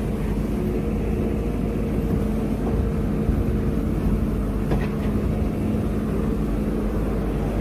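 Excavator engine running steadily, a constant low hum.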